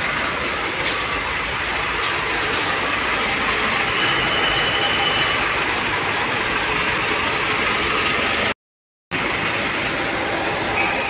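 Diesel truck engines idling and running steadily in a queue at a fuel pump, with a few faint clicks. The sound cuts out completely for about half a second a little past eight seconds in.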